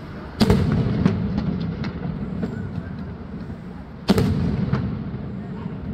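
Fireworks going off: two loud bangs about three and a half seconds apart, each followed by a scatter of smaller cracks and pops, over a continuous low rumble.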